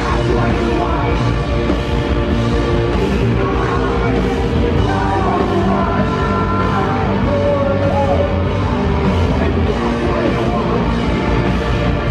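Live rock band playing loudly: electric guitar, keyboard and drums.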